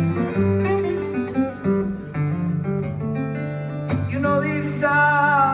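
Blues played on a guitar, picked notes over a steady bass line; a man's voice comes in singing about four seconds in.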